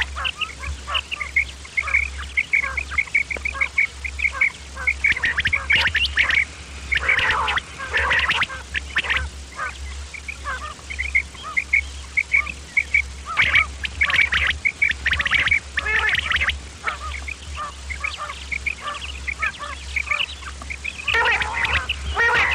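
Quail calling: a fast series of short, high notes, broken by louder, harsher chattering bursts several times. This is the quail call the uploader calls 'kirak', played to lure quail.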